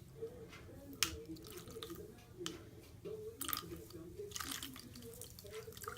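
Wet makeup sponge being dipped and squeezed in a glass of soapy water: faint squishing and dripping, with a few short wet clicks.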